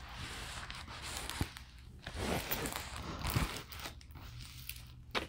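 Clear plastic protective film on a diamond painting canvas crinkling and rustling as the canvas is handled, irregular, with a few sharp ticks.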